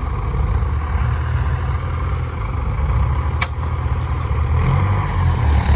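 Tractor engine running steadily under load while pulling a plough. A short sharp click comes about three and a half seconds in.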